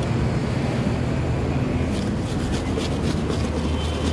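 Steady street-traffic rumble. From about halfway, a run of quick clicks and rattles from jhal muri being stirred and tossed in a plastic bucket.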